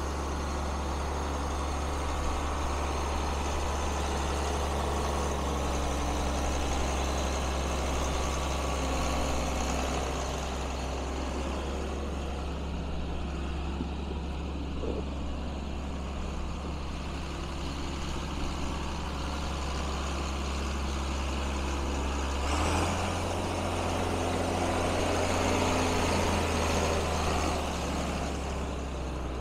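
John Deere 4840 tractor's turbocharged six-cylinder diesel running steadily as the tractor drives, its engine note shifting briefly about three quarters of the way through.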